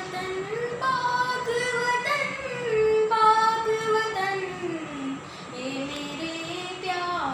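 A young boy singing solo. He holds long notes, with a slow slide down in pitch a little past the middle.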